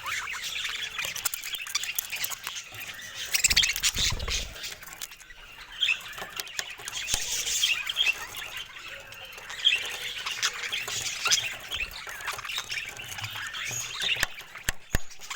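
Pet budgerigars chattering, a dense stream of short chirps, warbles and squawks. A low thump comes about four seconds in, and a few sharp clicks come near the end.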